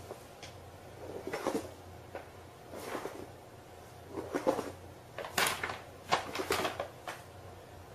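Paper bag rustling and scraping over a smooth floor in about five short bursts as a cat inside it shuffles along.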